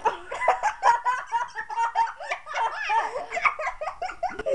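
Children laughing hard, in rapid repeated bursts.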